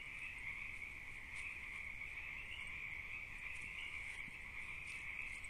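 A steady night chorus of frogs calling, heard as an unbroken high trill, picked up through a trail camera's small microphone with a low hum beneath.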